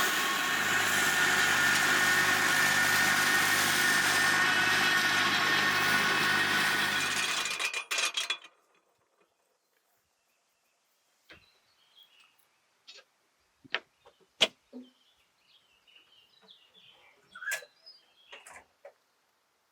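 Tractor-driven Remet F1-160 flail mulcher running steadily, a dense mechanical noise with a low engine hum and several steady whining tones, which cuts off abruptly about seven and a half seconds in. After that, near silence with a few scattered faint clicks.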